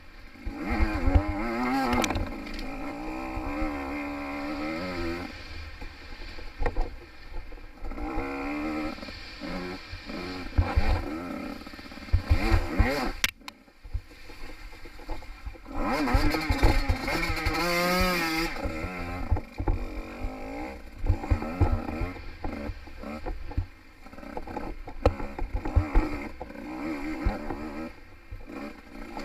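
Two-stroke enduro dirt bike engine revving up and backing off again and again as it is ridden over rough trail, with a strong climbing rev about two-thirds of the way through. Low knocks and rumble from the bumps run underneath.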